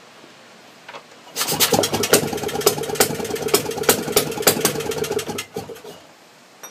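Enfield flat-twin two-stroke stationary engine firing up about a second and a half in on its battery and coil ignition, running briefly with a rapid, sharp crackle, then dying away after about four seconds.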